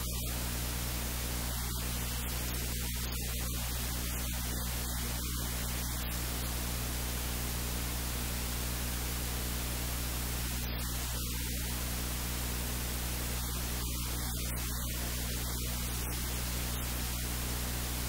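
Steady static hiss with a low, unchanging electrical hum underneath.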